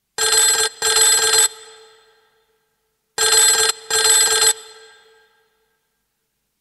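Old rotary-dial desk telephone ringing in a double-ring cadence: two rings about three seconds apart, each a pair of short bell bursts that leave a fading ring.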